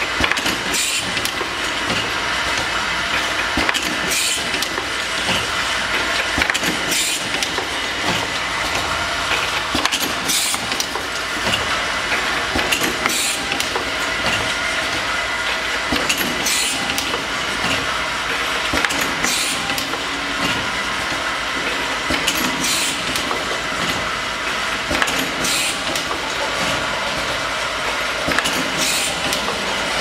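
Automatic glass-vial bottling line for essential oil running with a steady mechanical clatter, and a short hiss every two to four seconds as its air-driven cylinders cycle.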